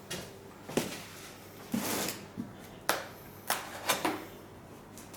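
A cardboard box and its packaging being opened and handled: a string of sharp knocks and clicks, about one every half second, with a longer rustle about two seconds in.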